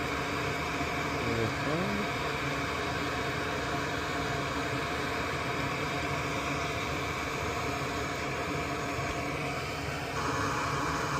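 Hot air rework station blowing a steady hiss of hot air while a MOSFET is desoldered from a circuit board. The hiss gets a little brighter near the end.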